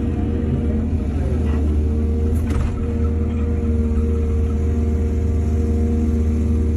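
Heavy diesel engine of an excavator running steadily under load, its pitch dipping briefly about a second and a half in. A short metallic clank comes about two and a half seconds in.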